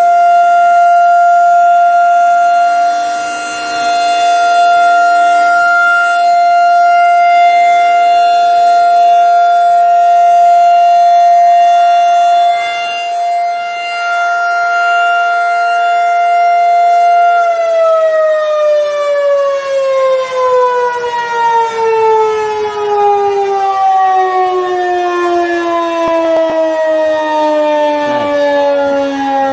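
Federal Signal 2001-DC outdoor warning siren sounding a steady single-tone wail, its loudness wavering now and then. About two-thirds of the way through the pitch begins to fall steadily as the siren winds down at the end of its test.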